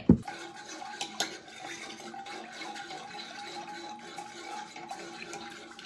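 A metal fork used as a whisk, stirring a liquid pudding mixture with cornstarch in a saucepan: steady, quick scraping and swishing against the pot, with a small clink about a second in. A faint steady hum runs underneath.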